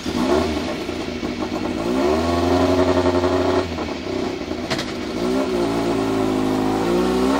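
Alfa Romeo 2.0-litre D2 four-cylinder race engine with individual throttle bodies, in a Fiat 131 rally car, revving while standing still. It rises about two seconds in and holds a raised pitch for a second and a half, drops back, then rises and holds again from about five seconds in. There is a single sharp click in between.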